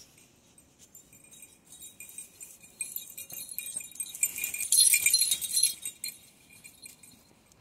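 Metal jingling from a dog's collar, light at first, then louder for a couple of seconds a little past the middle before dying away.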